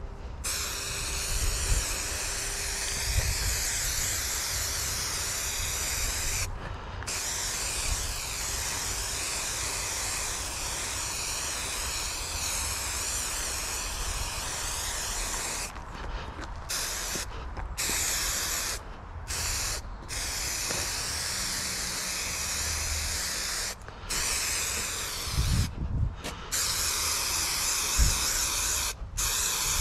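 Spray adhesive hissing out in long, steady bursts that stop sharply and restart, once about a quarter of the way in and then several times in quick succession in the second half, as a dashboard is prepared for a vinyl wrap. A few dull knocks near the end.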